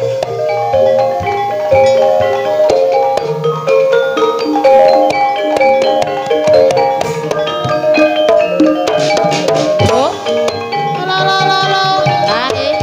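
Live ebeg dance music: quick interlocking runs of mallet-struck tuned percussion over drums. A sliding high melodic line joins near the end.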